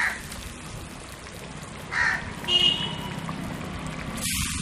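A crow cawing twice, about two seconds apart, with a brief higher bird call just after the second caw. Beneath it is the steady bubbling of curry boiling in a clay pot.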